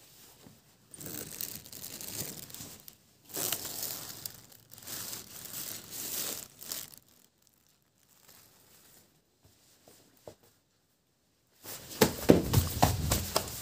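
Triangular Rubik's puzzle being twisted by hand: bursts of plastic pieces scraping and clicking as the layers turn, a pause, then louder rapid clacking in the last couple of seconds.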